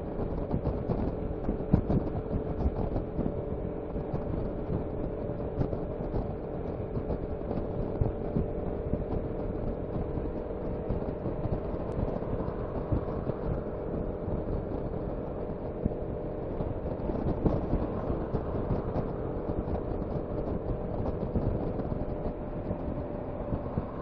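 Piaggio MP3 500 three-wheeled scooter's single-cylinder engine running at a steady cruising speed, its drone holding one pitch, under a constant rush of wind and road noise.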